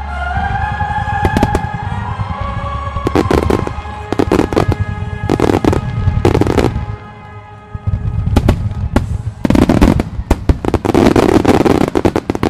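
A starmine fireworks barrage: volleys of shells fired in rapid succession, their bursts going off in dense clusters of bangs and crackle. It is set over music that fades out about a third of the way in, and after a short lull the densest, loudest volley fills the last few seconds.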